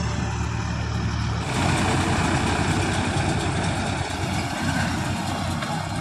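Farm tractor engine running steadily as it pulls a round baler through straw. About a second and a half in the sound changes abruptly, becoming noisier and hissier.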